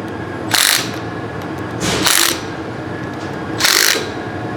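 Hand ratchet wrench run in three short clicking strokes, about a second and a half apart, snugging up bolts.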